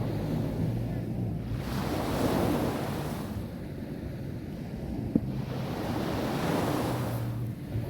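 Sea waves breaking and washing up a beach, the surf hiss swelling twice, over a steady low rumble of wind on the microphone. A single short click about two-thirds of the way through.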